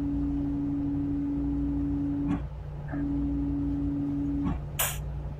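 Tugboat's diesel engines droning steadily. Over the drone, a steady single-pitched tone sounds for about two and a half seconds, breaks off, then sounds again for about a second and a half. A short hiss comes near the end.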